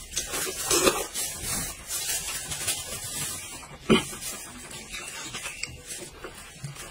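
Eating sounds: chewing and mouth noises while a large piece of meat is bitten and pulled apart by a gloved hand, with rubbing and rasping throughout and one sharp click about four seconds in.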